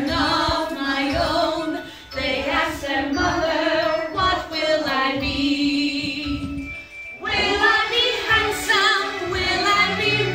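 A woman singing a 1960s pop song over backing music, with a group joining in on the singalong.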